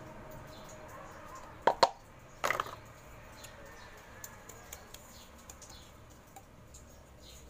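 A round metal cake pan knocks twice in quick succession a little under two seconds in, then clatters briefly; after that come faint scattered ticks as the greased pan is tilted and turned to dust it with flour.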